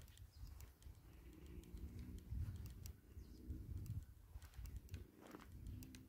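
Footsteps of someone walking on grassy ground, with a low, uneven wind rumble on the microphone.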